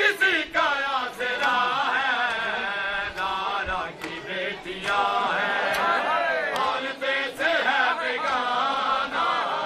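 A group of men chanting together, their voices rising and falling in a held melodic line, with sharp slaps sounding through it at uneven intervals.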